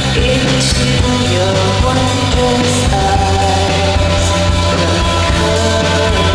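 Background rock music with a steady bass and a singing or lead melody line.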